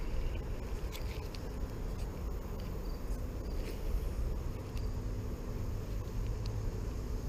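Steady low outdoor noise with a few light clicks and ticks scattered through it, as an ultralight spinning rod and reel are handled to cast and work a lure.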